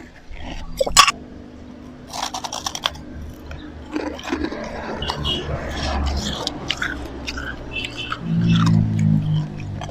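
Close-up crunching and chewing of slushy ice: a sharp crack about a second in, a run of crunches, then steady wet chewing. A louder low hum comes near the end.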